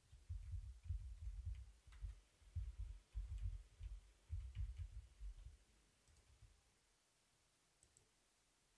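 Computer keyboard typing, heard as quick runs of faint dull thuds with thin key clicks, stopping about six seconds in; a couple of faint clicks follow near the end.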